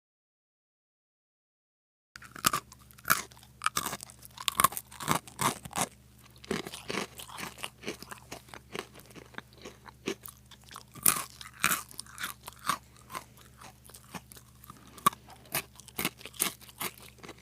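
After about two seconds of silence, a crunching sound effect starts: irregular crisp crunches, a few a second, like something crunchy being chewed, over a faint low hum.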